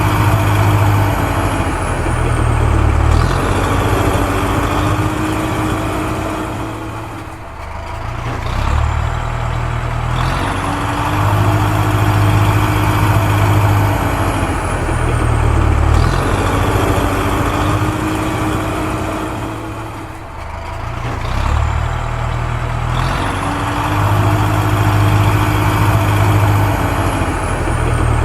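Heavy construction-machine engine sound effect playing on a loop, the same stretch repeating about every twelve seconds, with a brief dip in level each time round.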